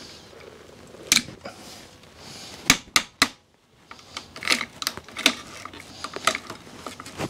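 Irregular sharp metal clicks and taps as hand tools work loose the clutch perch on a motorcycle's left handlebar. The taps are sparse at first and come faster in the second half.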